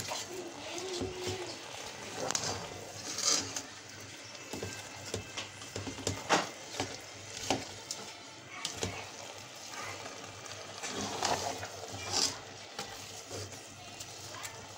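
A spatula stirring and scraping a thick mixture of grated carrots, cream and sugar in a steel pot, with irregular scrapes and knocks against the pot. Under them the wet halwa sizzles as it cooks down.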